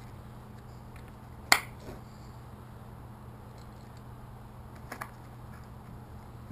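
Muzzleloader being handled at the breech: one sharp metallic click about a second and a half in, then a few faint clicks later on.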